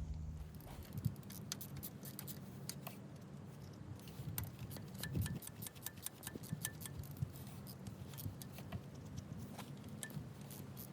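Many small clicks and light clinks of parts or tools being handled, over a steady low hum.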